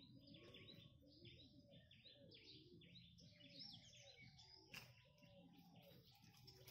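Faint chorus of many small birds chirping rapidly and without a break, with lower repeated calls beneath them. A single sharp click sounds about five seconds in.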